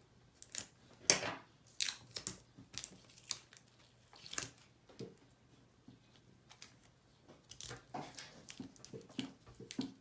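Hands handling EVA-foam craft pieces and a small round magnet on a tabletop while gluing the magnet on: scattered light clicks and rustles at irregular intervals, the loudest about a second in.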